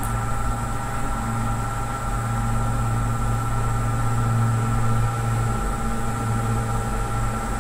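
Steady low electrical hum with hiss and faint high whining tones, unchanging throughout: the background noise of the recording setup.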